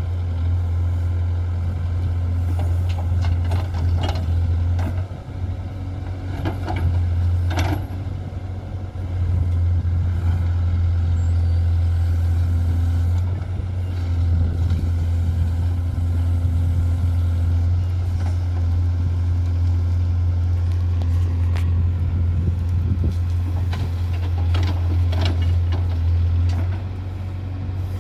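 Diesel engine of a JCB 3DX backhoe loader running under load while the backhoe digs. The engine note dips and picks up again several times as the hydraulics work, with a few short scrapes and knocks from the bucket in the soil and stones.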